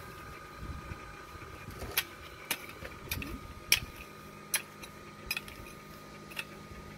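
Metal blade of a long-handled double-bladed weeding hoe scraping through grass and stony ground, giving sharp, irregular clinks: about seven, starting about two seconds in.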